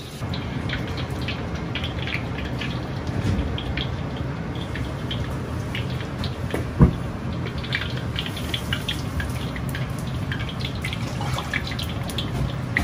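Hot oil sizzling and crackling around ingredients frying in a wok, over the steady rush of a gas wok burner, with one sharp knock about seven seconds in.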